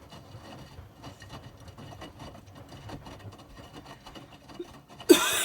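Faint, uneven rumbling and rubbing from a Miele washing machine, then a loud cough breaks in near the end.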